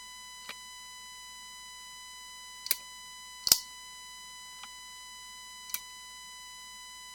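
A steady high-pitched electronic tone with a ladder of overtones runs underneath, while five small sharp clicks and taps from handling the switch parts come at irregular moments, the loudest about three and a half seconds in.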